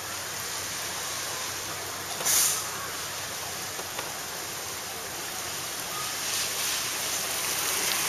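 Steady hiss of heavy rain in typhoon wind, with one short, sharp hiss about two and a half seconds in and a swelling rush near the end.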